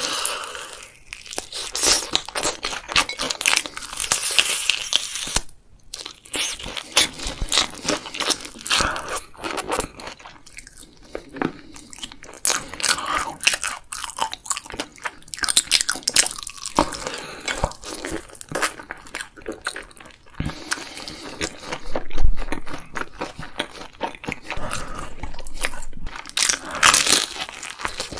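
Close-miked eating: repeated crunchy bites and chewing, an irregular run of sharp crackles with softer wet chewing between them.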